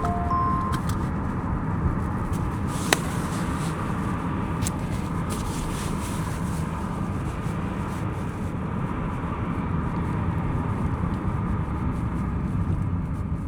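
A car driving on the road, heard from inside, with a steady low rumble of road and tyre noise. A single sharp knock comes about three seconds in, and a few short beeps end within the first second.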